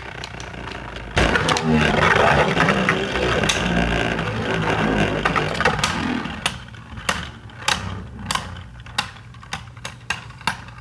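Beyblade Burst spinning tops clashing and grinding against each other in a plastic stadium: a dense rattling clatter for about five seconds, thinning out after about six seconds into separate sharp clicks.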